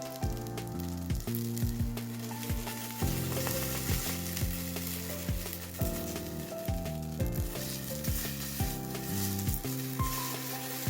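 Background music with a steady beat, over a continuous sizzling hiss of food frying in a pan over a wood fire.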